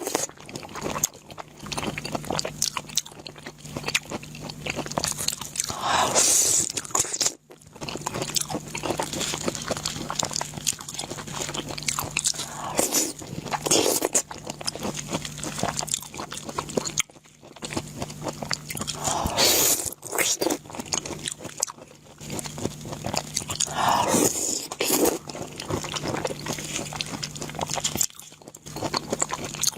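Close-up crunchy biting and chewing of food, a dense run of rapid crackles with several louder bites, over a faint steady low hum.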